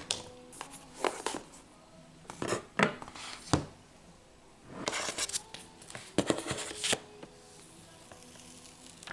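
Close handling sounds: several sharp clicks and taps in the first few seconds, then two longer stretches of rustling and clatter around the middle.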